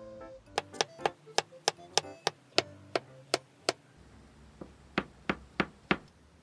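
Kitchen knife slicing button mushrooms on a wooden cutting board: a steady run of sharp knocks on the board, about three a second, a short pause, then five more strokes.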